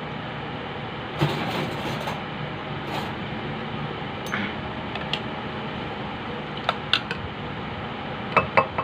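Metal spoons clinking against each other and against a bowl as noodles are about to be stirred: a brief rustle about a second in, then scattered sharp clinks, two close together near the end, over a steady air-conditioner hum.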